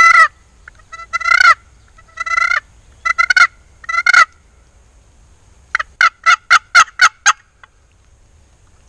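Turkey yelps from a hunter's turkey call: single loud yelps about a second apart, then a quick run of about eight yelps.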